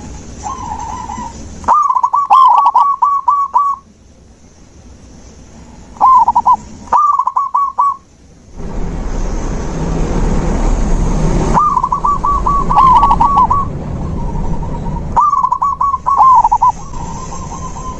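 Zebra doves cooing: phrases of rapid, staccato coos near one pitch, ending in a rolling trill and repeated after short pauses. A stretch of rushing noise comes in about halfway through and runs under the cooing for a few seconds.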